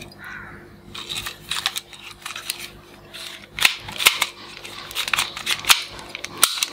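Hard plastic toy pistols being handled: irregular clicks and knocks of plastic parts, with toys clattering against one another on the table.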